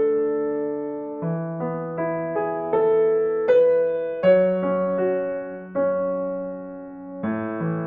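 Background music: a slow, gentle electric piano piece, chords and single notes struck about every half second and left to ring out.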